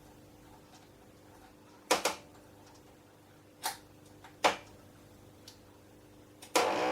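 Hand-tool work on a bicycle headset: three sharp metallic clicks a second or two apart, then near the end a loud rasping burst, the top-cap bolt being tightened.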